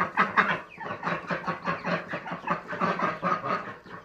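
A flock of poultry in a coop, young chickens among them, chattering in a dense, continuous stream of short cheeps and calls.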